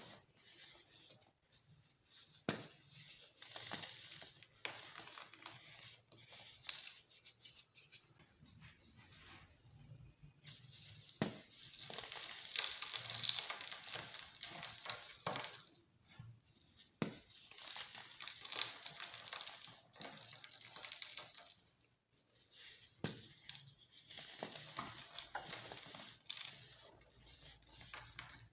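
Colourful baking soda being crushed and crumbled, a dry crunching and crackling with scattered sharp cracks. It is busiest for a few seconds near the middle.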